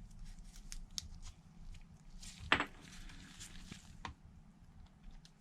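Light clicks and taps of a SIM card and its small tray being handled and pushed into a phone's slot, with one sharper click about two and a half seconds in and another near four seconds.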